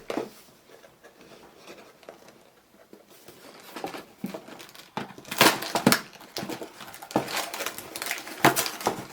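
Hands working at a small cardboard LEGO box to get it open: quiet fumbling at first, then from about halfway a run of sharp scrapes, clicks and crinkles as the flaps and packaging are pulled at.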